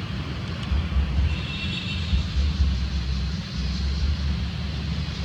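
Wind buffeting the microphone: an uneven low rumble that swells and drops throughout, with a faint high, even chirring about a second in.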